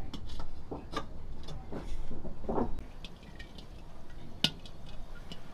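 Steel wok being handled on a wood-fired clay stove, with knocks and scrapes in the first few seconds. Then a lump of fat starts to melt in the pan, with faint crackling ticks and one sharp click about four and a half seconds in.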